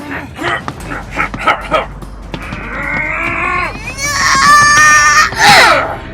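A woman's voice making non-verbal sound effects: a quick run of short, sharp sounds, then a strained cry, a high held squeal, and a sweep falling in pitch near the end.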